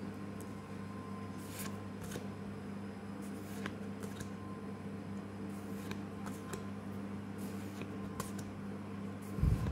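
Pokémon trading cards being flipped one at a time in the hand, each card sliding off the stack with a short papery swish or light click, about once a second. A steady low hum runs underneath, and a brief low thump comes shortly before the end.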